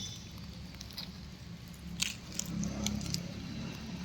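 A few light clicks and handling noises, the sharpest about two seconds in, over a low steady rumble.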